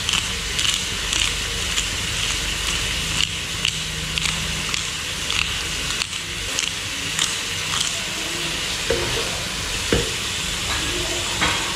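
Chicken and chopped vegetables sizzling steadily as they fry in a non-stick pot, with scattered short ticks and a few brief knocks near the end.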